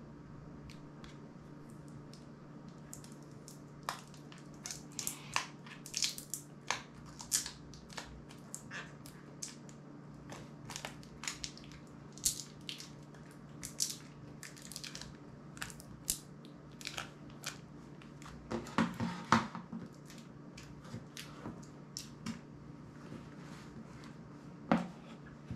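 Fingers picking and prying at an opened smartphone's glued-in battery after its adhesive pull tab has snapped: irregular small clicks and crackles of plastic and adhesive, busiest about 18 to 20 seconds in, over a steady low hum.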